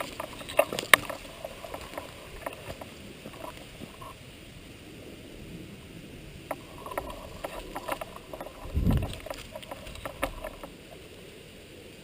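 Scattered clicks and rustling, in two bursts near the start and later on, with one low thump about nine seconds in.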